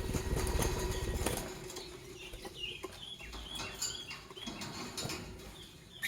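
Lovebirds giving a run of short, high chirps, each dropping slightly in pitch. A low rustle, like wing movement, comes in the first second or so.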